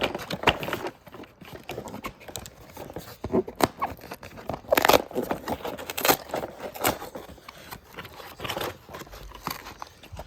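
A toy being taken out of its cardboard box and packaging by hand: irregular scraping, crinkling and knocking, with the loudest handling noises about halfway through.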